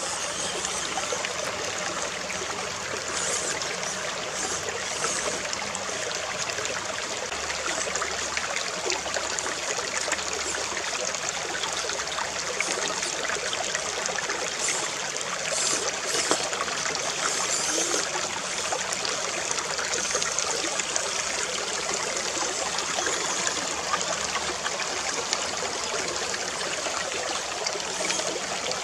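Shallow, rocky stream trickling and babbling steadily.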